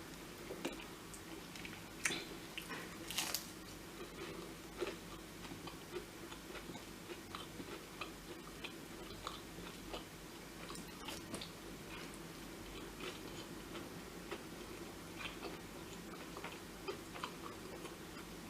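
A person chewing and eating quietly, with scattered small clicks and mouth sounds over a faint steady hum.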